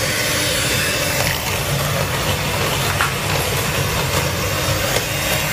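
Electric hand mixer running steadily, its twin beaters whisking brownie batter in a glass bowl.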